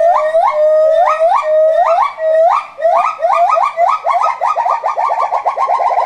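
Gibbons singing: a series of rising whooping notes that speed up into a rapid run of short hoots, several a second, near the end.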